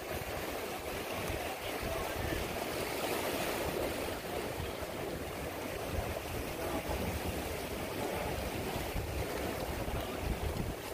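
Sea surf washing against the boulders of a rock jetty, with wind buffeting the microphone in low gusts.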